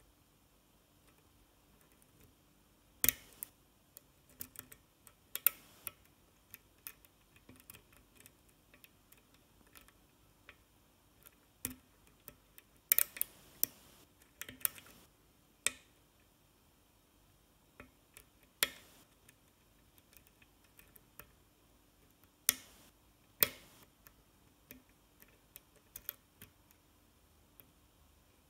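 Hook pick working the pins of a six-pin oval lock cylinder under a tension wrench: irregular small clicks as pins are lifted and set, with a handful of much louder sharp clicks scattered through.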